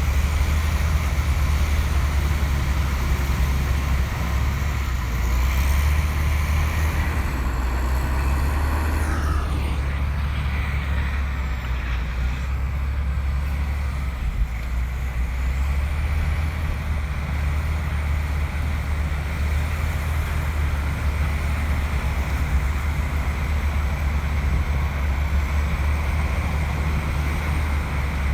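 Komatsu crawler bulldozer's diesel engine running steadily under load, with a deep, even rumble. About nine seconds in there is a brief high squeal that falls in pitch.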